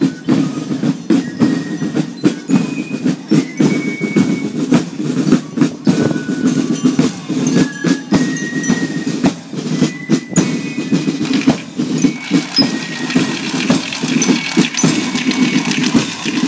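Street carnival fools' parade going by: a dense din with irregular percussive clicks and knocks and scattered short high-pitched tones.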